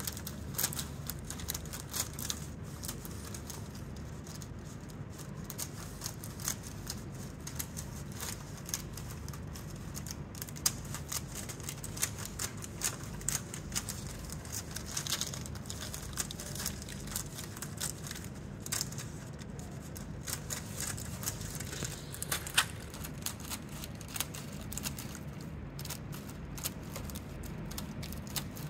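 Scissors snipping through a rhinestone transfer sheet and its plastic protective film: a run of small, irregular clicks and crinkles as the blades close and the film shifts.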